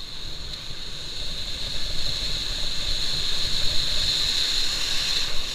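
Wind rumbling on the microphone, with a steady high hiss over it.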